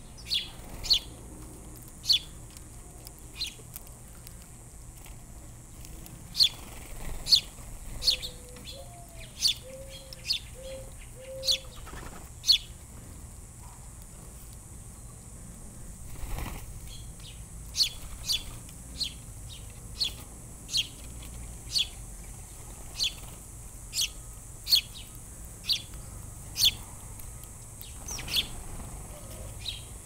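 Small songbirds chirping off camera: short, sharp single chirps, irregularly about one a second. About eight seconds in, a dove coos a low four-note phrase.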